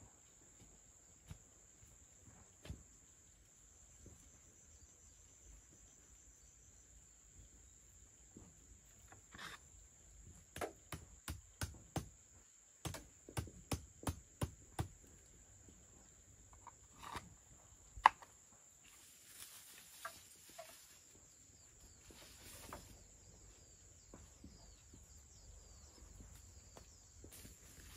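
A steady, high drone of insects runs under a string of sharp knocks: about ten in the middle, roughly two a second, then one louder knock a few seconds later, followed by brief rustling.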